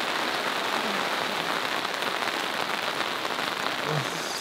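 Steady rain falling on a tent's fabric canopy.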